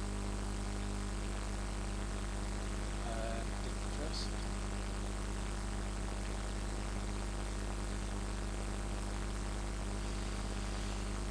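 Steady electrical mains hum and buzz with a faint hiss, unchanging throughout. A couple of faint short sounds occur a few seconds in.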